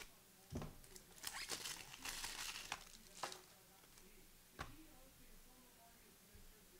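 Plastic wrapper of a trading card pack crinkling as it is torn open, loudest from about one to three seconds in, with a few sharp knocks around it.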